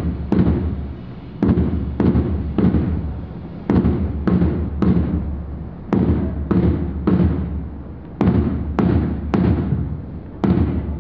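Drum beating a march rhythm: deep strokes in groups of three, about half a second apart, with a short pause after each group.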